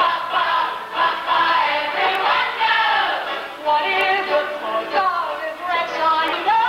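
Stage-musical ensemble singing together in chorus over musical accompaniment, the voices changing pitch continuously through a lively number.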